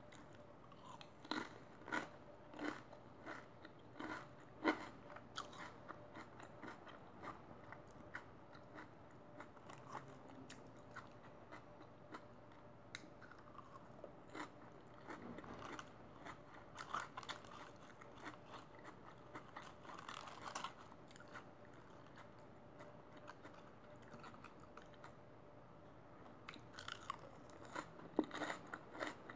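A person chewing and biting crunchy food close to the microphone, with sharp crunches coming thick in the first few seconds and again near the end, and softer chewing between.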